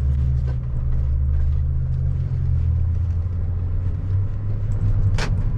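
Steady low rumble of a car driving, heard from inside the cabin, with one sharp click about five seconds in.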